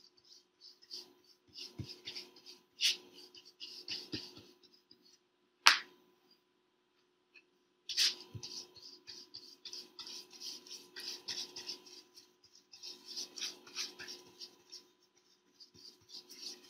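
Paintbrush strokes scratching across paper in quick runs of rubbing strokes, with a pause and a single sharp tap about six seconds in.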